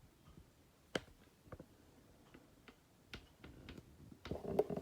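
Scattered light clicks and taps, one sharper one about a second in, growing busier and louder near the end.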